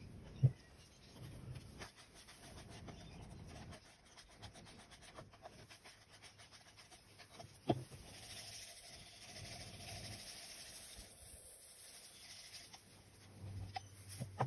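Handling noise: gloved hands rubbing and rustling paper cups against a plastic drop sheet, with a sharp knock about half a second in and another near 8 s as cups are handled or set down.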